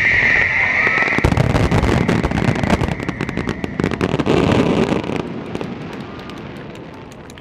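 Starmine aerial fireworks finale: a steady high whistle stops about a second in as a heavy barrage of shell bursts breaks, followed by dense crackling that fades toward the end.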